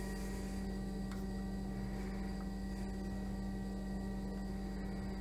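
Coolant pump on a Weiler toolroom lathe running with a steady electric hum, circulating cutting oil out to the flexible coolant nozzle.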